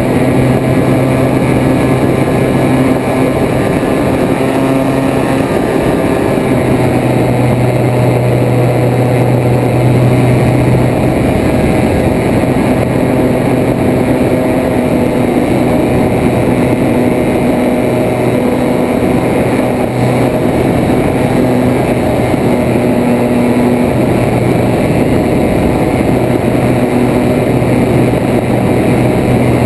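Propeller aircraft engine running steadily in flight, a loud constant hum with wind rushing over the wing-mounted camera.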